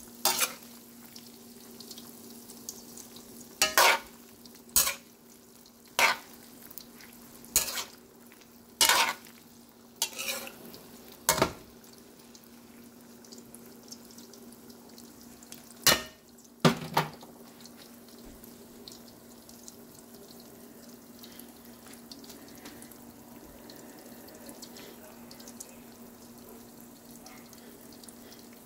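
Fish balls and kikiam frying in oil in a metal wok, with a metal utensil scraping and knocking against the wok about ten times in the first 17 seconds. A steady low sizzle and a faint hum carry on underneath, and after the stirring stops only the sizzle remains.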